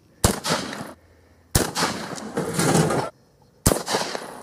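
Three shotgun shots from a Mossberg pump shotgun fitted with a custom shrink-fit muzzle brake, each a sharp blast with a long echo trailing off after it.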